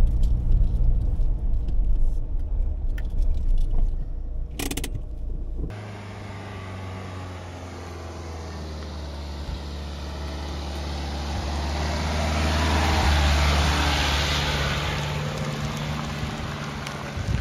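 Dacia Duster 4x4 on a dirt forest track: first a loud low rumble of driving, then the car's engine and its tyres on the gravel and mud approach, grow louder to a peak about thirteen seconds in, and fade as it moves away.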